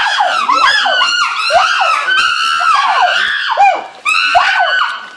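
Several monkeys shrieking over one another in a fight, with high cries that rise and fall packed close together and a short lull just before four seconds in.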